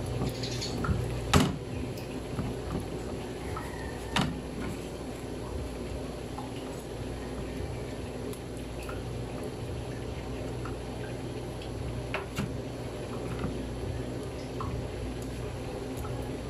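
Plastic spatula pressing and folding soft homemade butter on a wooden board, with faint wet squelching as the leftover milk is worked out. A few sharp knocks of the spatula against the board, the loudest about a second and a half in.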